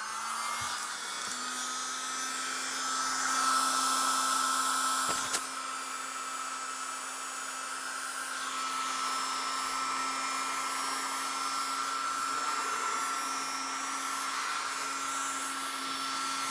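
Mini USB vacuum cleaner running: a small electric motor's steady whine over a rush of sucked air. It gets louder for about two seconds, starting around three seconds in, and there is a single click shortly after.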